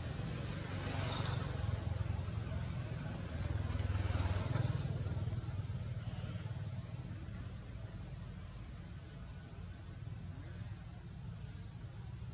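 Outdoor ambience: a low steady rumble of distant traffic, swelling a little about four seconds in, under a steady high-pitched insect drone.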